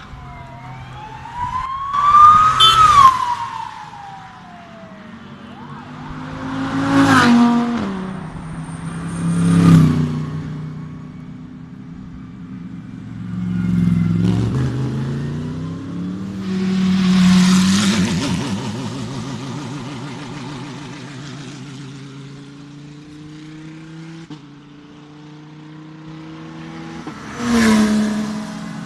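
Race car engines running at low speed, with a steady low note, blipped in loud revs about six times as they rise and fall in pitch.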